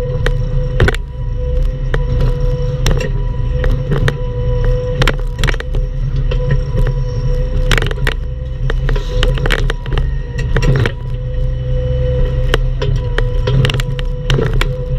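Bobcat E10 mini excavator running under load: a steady diesel engine hum with a whine over it, broken by many irregular knocks and clatters as the machine works the palm stump and soil.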